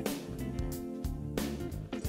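Instrumental background music with guitar, steady notes punctuated by a few sharp beats.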